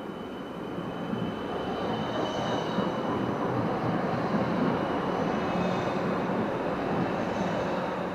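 A red Bernmobil city tram passing close by on cobbled street track. Its rolling rumble swells from about a second in, is loudest midway, and eases near the end, with a faint high whine above it.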